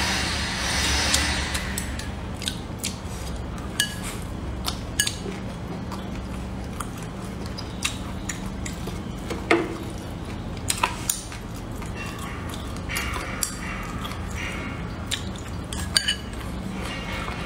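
Chopsticks clicking and tapping against a ceramic bowl in scattered sharp strokes, with close-up chewing and mouth sounds, over a steady low hum.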